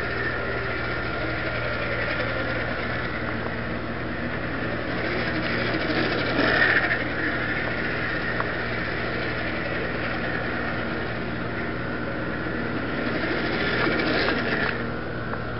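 1/24-scale slot car's electric motor, a new-old-stock Strombecker 12-volt not yet broken in, whining steadily with its gears as the car laps the track. The whine swells louder as the car passes close, about six seconds in and again near the end, over a steady low hum.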